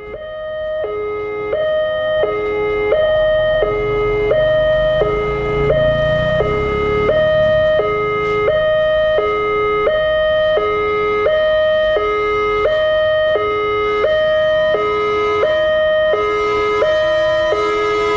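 Railway level-crossing warning siren sounding a steady two-tone hi-lo alternation, each tone held about three-quarters of a second, warning of an approaching train.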